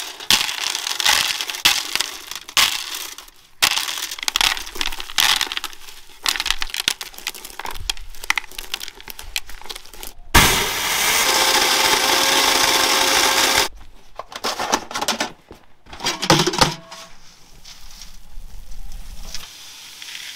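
Dried corn kernels being twisted off the cob by gloved hands: a dense, crackling run of kernels snapping loose and pattering into a container. About ten seconds in, a grain mill grinding the shelled corn runs steadily for about three seconds and stops abruptly, then the crackling of shelling resumes briefly.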